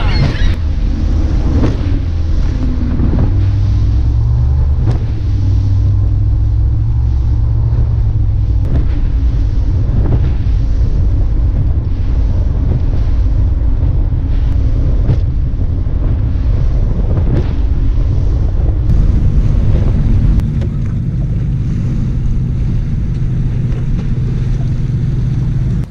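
Bass boat running across open water at speed: a steady outboard motor drone mixed with wind buffeting the microphone and occasional thumps of the hull hitting the chop.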